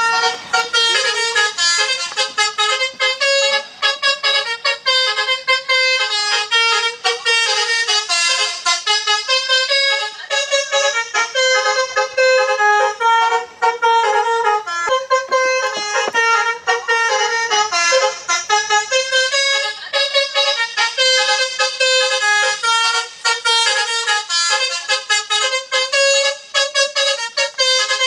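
Basuri telolet horn playing a fast, continuous tune of quickly changing notes.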